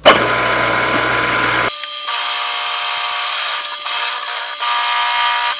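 Milling-machine end mill taking a cut along a steel rebar bar. It starts suddenly and loudly as the cutter bites, then runs as steady cutting noise. About two seconds in, the sound changes abruptly to a high, ringing whine with several steady tones.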